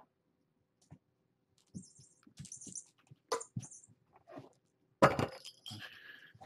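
Faint scattered scuffs and small rattles, then about five seconds in a loud knock followed by rubbing and scraping as a hand takes hold of the camera to wipe its lens.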